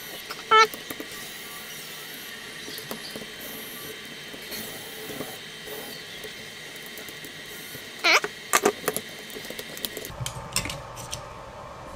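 Small electric precision screwdriver whirring in short bursts while screws are driven out of a quadcopter frame. There are two brief whines near the start. About two-thirds through comes a longer whine that rises and falls in pitch, followed by a few quick pulses.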